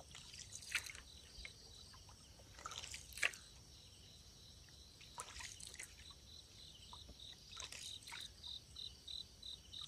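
Night insects chirring in a steady high drone, with a pulsed chirp of about three notes a second starting around seven seconds in. Several small drips and splashes of water are scattered through it.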